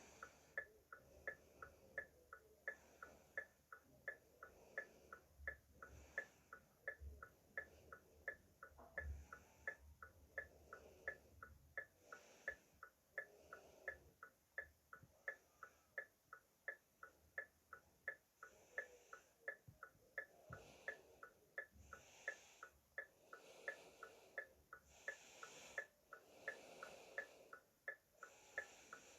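Car hazard-light flasher relay ticking steadily, an even run of about two to three clicks a second.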